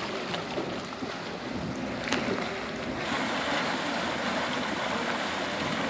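Dragon's Mouth Spring, a hot spring in a steaming cave, churning and sloshing as water surges from the cave mouth, with one sharp click about two seconds in. After about three seconds the sound cuts to a steady windy rush.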